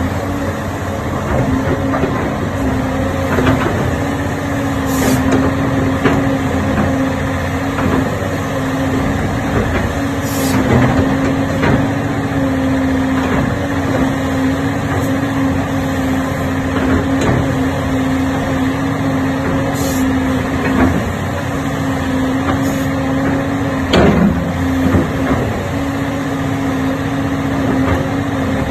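Doosan DX300LC crawler excavator's diesel engine running steadily with a constant whine over it, broken by a few sharp knocks.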